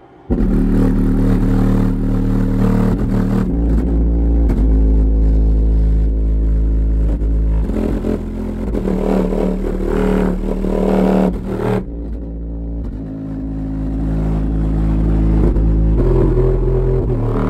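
Two 15-inch Vulkan Xtreme V11 subwoofers in free air, with no box, playing a bass-heavy song loud from a Genius GEX5000EQ amplifier, cones at heavy excursion in a mechanical excursion test. The deep bass starts suddenly just after the start and drops out briefly about twelve seconds in.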